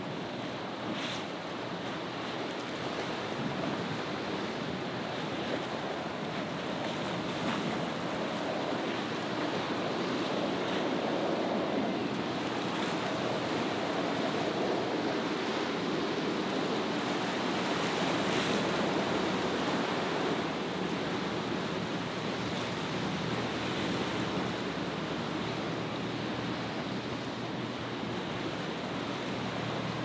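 Choppy surf and breaking waves washing, with strong wind buffeting the microphone; the wash swells louder through the middle and eases a little near the end.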